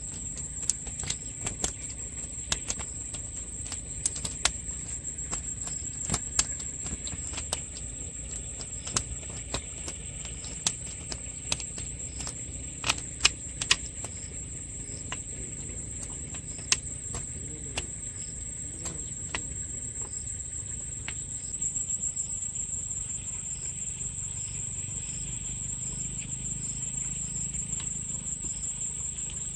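A steady high-pitched insect drone over a low rumble, with many sharp clicks and taps through the first half that thin out later. From about two-thirds of the way in, a faint short high note repeats about once a second.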